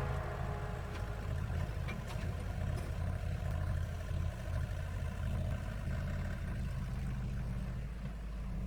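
Heavy diesel engine running with a steady low rumble, a few faint clicks about two seconds in.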